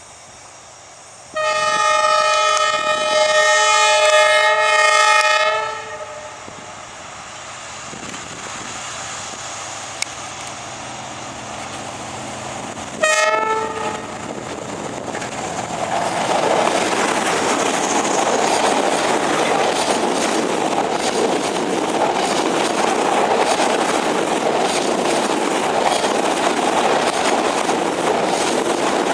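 Train horn sounding one long blast of about four seconds, then a short blast some seven seconds later; after that the train passes close, its wheels clattering and rushing on the rails, growing louder and then holding steady.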